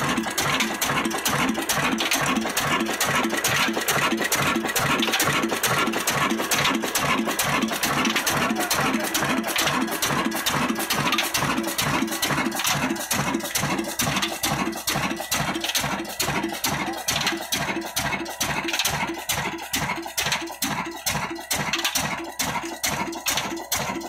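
Old single-cylinder horizontal Ruston & Hornsby diesel engine running with a steady beat of about four firing strokes a second. The beats stand out more sharply in the second half.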